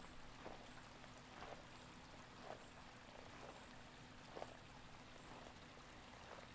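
Faint footsteps on a concrete path, about one slow step a second, over a low steady hiss and hum.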